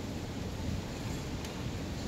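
Gas tiki torches burning: a steady rushing noise of the flames, with wind rumbling on the microphone.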